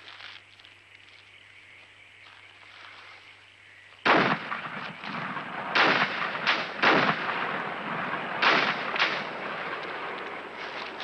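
Gunshots: after a few quiet seconds a sudden loud shot about four seconds in, then a string of further shots over the next five seconds amid a steady noisy din.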